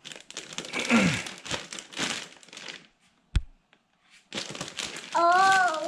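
Packaging crinkling and rustling as the electric skateboard is handled in its box, with one sharp knock a little past halfway. A young child's drawn-out voice comes in near the end.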